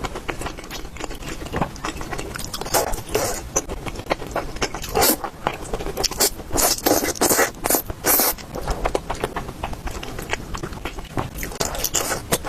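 Close-miked eating sounds: a person chewing and biting food, with many quick, irregular sharp clicks and a few longer smacking sounds.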